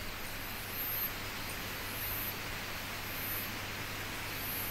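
Steady hiss of night-time outdoor ambience, with a faint, very high-pitched chirp repeating about once a second.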